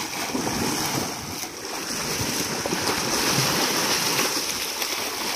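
Muddy pond water churning and splashing as elephants wallow and roll in it.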